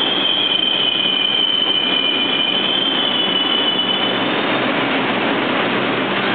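Wheels of an approaching R142 subway train squealing against the rails, a high squeal that drifts slightly lower and fades out about four seconds in, over steady, loud rolling noise of the train.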